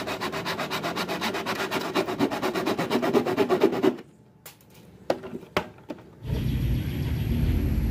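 A saw blade rasping through a large plastic water bottle in fast, even strokes, several a second, stopping about four seconds in. A few sharp clicks follow as the bottle is handled, then a steady, fuller sound, likely background music, takes over near the end.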